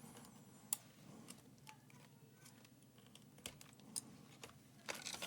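Faint, scattered clicks and light knocks of a laptop motherboard being handled and worked free of its case, a few closer together near the end.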